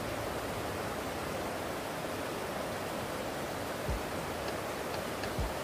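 Steady rush of river water pouring over a low concrete weir, with a short low thump about four seconds in and another near the end.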